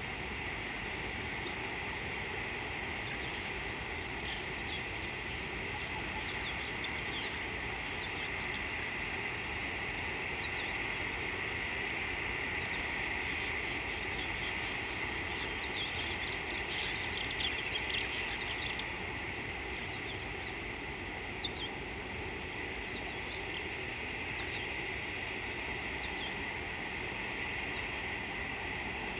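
Steady chorus of calling insects: a continuous high buzz in two bands, with scattered short chirps that cluster a little past halfway.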